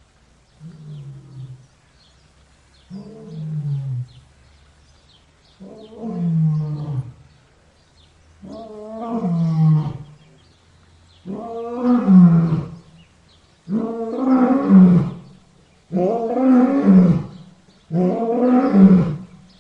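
Lion roaring in a bout of eight roars, each about a second and a half long and falling in pitch, spaced a couple of seconds apart. The bout builds from a faint first roar to full, loud roars near the end.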